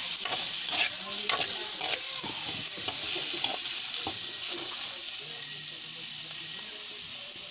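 Seafood pieces sizzling in hot oil in a wok while a metal spatula stirs and scrapes through them. Scraping strokes come through the first half, then the sizzle carries on as a steadier hiss.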